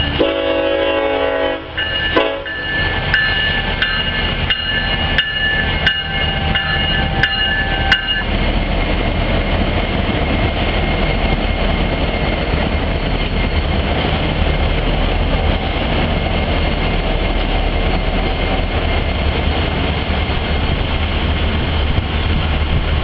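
Florida East Coast Railway freight train: the locomotive horn sounds a chord for about two seconds with a short break, then the locomotives pass the crossing with sharp clicks about every 0.7 s. From about eight seconds in, a steady rumble and roar of loaded freight cars rolling past.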